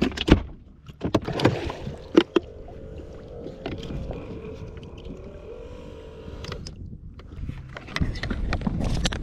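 A few sharp knocks and thumps on an aluminium fishing boat, then a steady electric motor whine for about three and a half seconds that cuts off.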